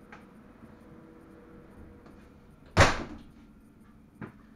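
A single sharp knock about three seconds in, with a short ringing tail and fainter clicks around it, inside a train driver's cab.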